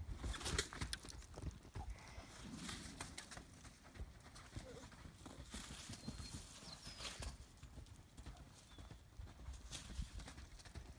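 A horse's hooves beating on the dirt footing of a round pen as it moves around, uneven thuds and knocks.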